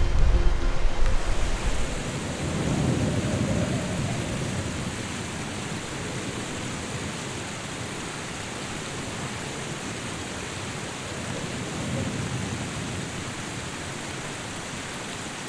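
Steady rushing noise of fast-flowing water, like a mountain river. Low gusts of wind swell on the microphone about three seconds in and again about twelve seconds in.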